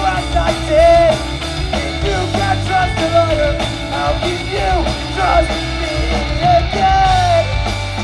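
Live pop-punk band playing: distorted electric guitars, bass and drum kit under a sung lead vocal melody.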